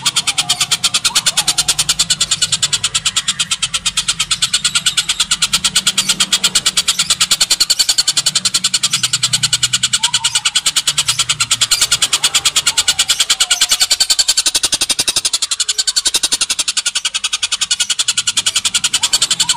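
Oriental dollarbird (tengkek buto) giving its harsh, rapid chattering call as one long unbroken rattle of fast, evenly spaced notes.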